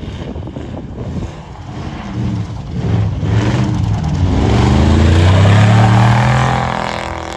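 Cammed Chevy Silverado pickup's 6.0 V8 revving as the truck spins its tyres through deep snow and passes close. The engine note climbs and grows loud, peaking about five to six seconds in, then fades as the truck moves away.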